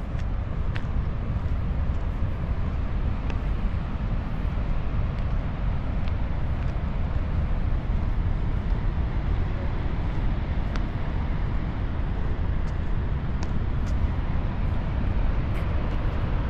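Wind buffeting the camera's microphone: a steady low rumbling rush with a few faint light clicks.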